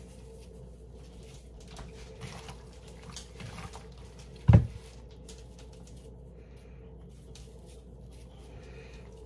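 Salt and pepper shaken from shakers onto raw chicken breasts in a bowl: a light patter of small ticks, with one dull thump about four and a half seconds in.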